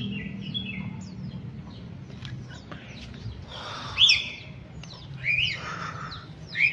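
Sooty-headed bulbuls (kutilang) calling: a scatter of short rising chirps and squawky notes, with louder calls about four and five seconds in and again near the end.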